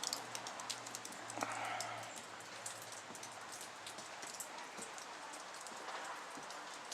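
Ice-coated trees shedding after an ice storm: a steady, rain-like patter of many small irregular ticks as meltwater drips and bits of ice fall.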